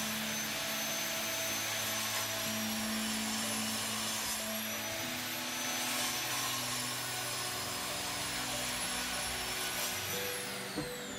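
Electric sliding compound mitre saw running steadily as it cuts through a wooden board. The motor whine dips slightly under load and falls in pitch near the end as the blade spins down.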